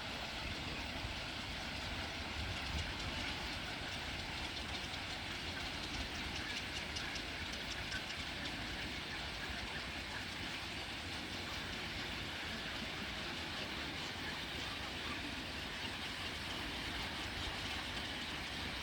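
Steady rumble and rattle of a moving vehicle, with a faint regular clatter.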